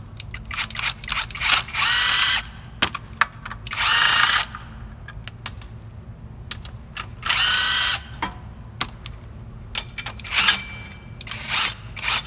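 Handheld power tool spinning out bolts in three short runs, each under a second and rising in pitch, with clicks and knocks of tool and metal handling between them.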